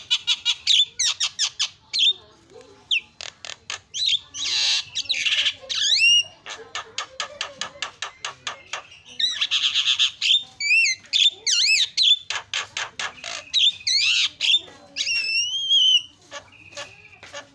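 Javan myna singing a varied song: fast runs of dry clicks, rising and falling whistles and harsh rasping notes, mixed without a break until it thins out near the end.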